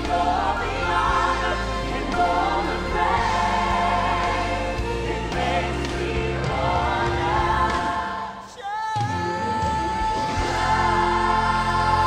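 Live gospel worship song: amplified singers with microphones over a full band accompaniment. About eight and a half seconds in the music drops out briefly, then a solo voice comes back holding one long high note as the band returns.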